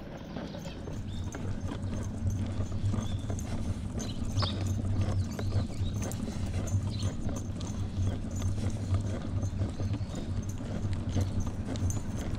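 Rhythmic footsteps on a paved sidewalk while walking, over a steady low rumble.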